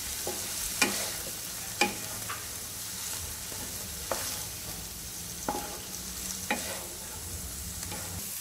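Chopped onions frying in oil in a nonstick pan, a steady sizzle, while a wooden spatula stirs them, knocking and scraping on the pan every second or so, the sharpest two knocks in the first two seconds.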